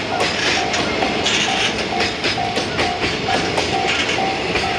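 Container flat wagons of a JR Freight train rolling past at close range: a steady rush of wheel and rail noise with frequent clattering knocks as the wheels cross rail joints. A level-crossing warning bell dings about twice a second over it.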